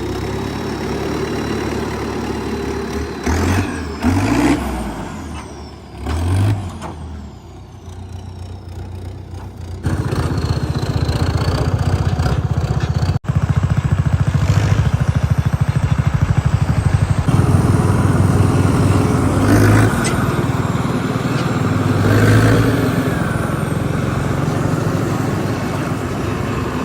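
Diesel tractor engine running as the tractor drives off towing a hitched cart; about ten seconds in the sound jumps to a louder, steady, fast chugging.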